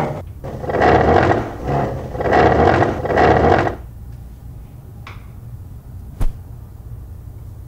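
Wooden chair dragged across the floor in several loud scrapes lasting about three seconds. A single sharp click follows a little after six seconds in.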